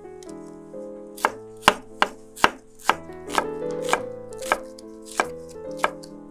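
Chef's knife slicing an onion into half-rings on a wooden cutting board: about ten sharp knocks of the blade hitting the board, roughly two a second, starting about a second in.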